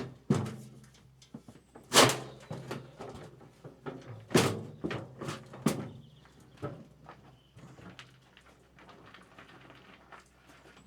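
A series of irregular knocks and thuds. The loudest comes about two seconds in, with more around four and a half and six seconds and lighter taps between.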